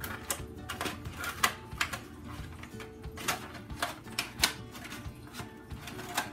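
Small scissors snipping and crunching through a foam egg carton: a run of irregular crisp snips, roughly two a second.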